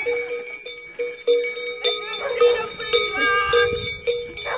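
Bells worn on devils' costumes ringing and clanging in irregular, repeated strikes as the wearers move.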